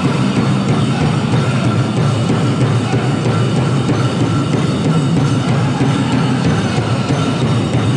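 Powwow drum group performing a chicken dance song: several drummers beating a big shared drum steadily while singing. The music runs loud and even, with no pause.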